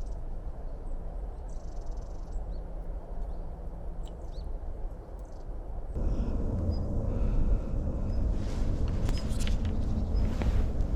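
Outdoor riverside ambience: a steady low rumble with a few faint bird chirps. The background gets suddenly louder about halfway through.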